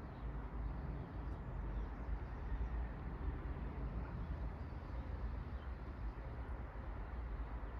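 Steady outdoor background noise: a low, unbroken rumble with a fainter hiss above it.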